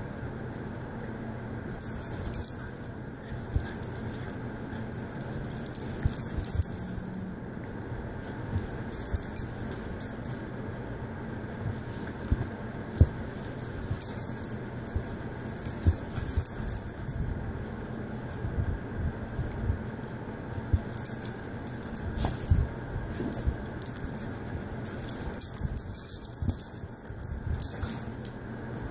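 Dog collar tags jingling in irregular spurts as a miniature poodle and a jackabee (Jack Russell–beagle cross) wrestle, with scattered soft thumps from the bedding over a steady low hum.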